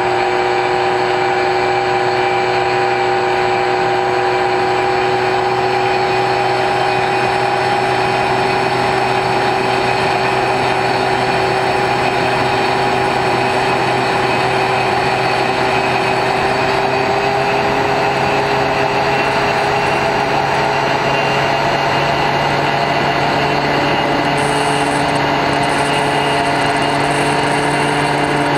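X-UAV Talon RC plane's brushless electric motor and pusher propeller whining steadily in cruise, picked up by the plane's onboard camera with rushing air. The pitch holds nearly level and rises slightly in the last several seconds.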